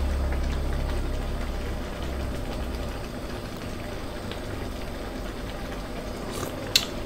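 Soured bamboo shoot and snakehead fish curry boiling in a pot: a steady bubbling with a low hum that fades over the first few seconds. A short sharp clink comes near the end.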